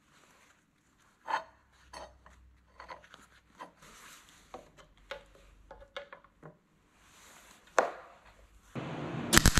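Steel strips and F-clamps being set and tightened on a steel plate: a string of light metal clicks and knocks, with one sharper clank near the end. In the last second an electric welding arc strikes and crackles steadily.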